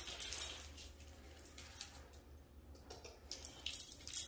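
A dog moving on a bed: bedding rustling and the tags on her collar clinking as she walks over the quilt and noses into the pillows. The sounds are loudest at the start and again near the end, quieter in between.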